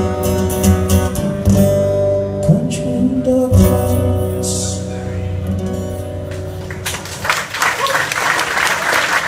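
A man sings the last notes of a song over strummed acoustic guitar chords. The music ends about seven seconds in, and audience applause follows.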